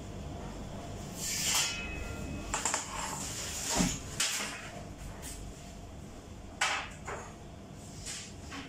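Large metal baking sheets being handled and set down on a table: a series of about six scrapes and clatters, the loudest near the middle.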